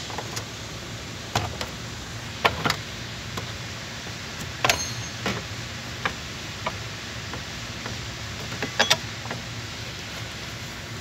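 Scattered sharp plastic clicks and knocks from a pickup's air cleaner housing lid being worked and pressed into place, over a faint steady low hum.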